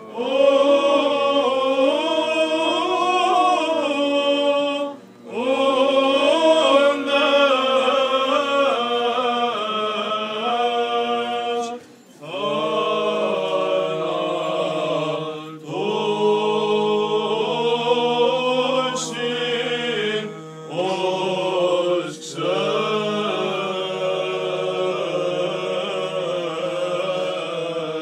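A small group of young male voices chanting a Greek Orthodox Byzantine hymn, in long phrases with brief pauses for breath. A low held note sounds underneath from about halfway.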